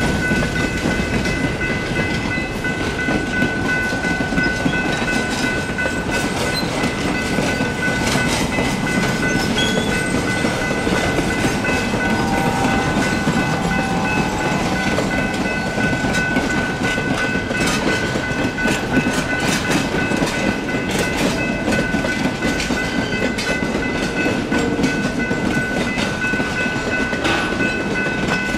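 Passenger railcars rolling past, wheels clicking over the rail joints, while electronic crossing bells (GS Type 3 E-Bells) ring steadily throughout.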